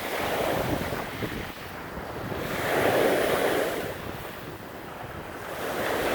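Small lake waves washing onto a rocky beach, each swell rising and falling away about every three seconds, with wind buffeting the microphone.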